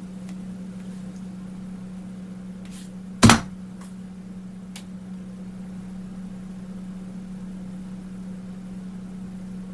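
A steady low hum, with one sharp keyboard key click about three seconds in and a few fainter clicks after it.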